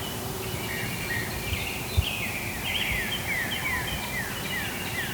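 Songbirds singing in the woods, with a run of short, repeated descending notes in the second half. A single low thump comes about two seconds in.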